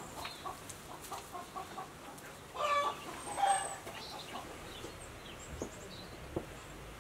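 Chickens clucking: a run of short, quick clucks, then one louder, drawn-out call a little under halfway through, and scattered softer clucks after it.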